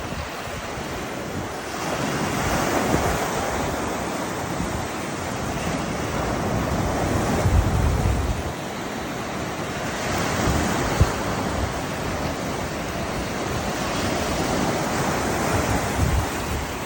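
Ocean surf breaking on a beach, the wash swelling every few seconds, with gusty wind rumbling on the microphone.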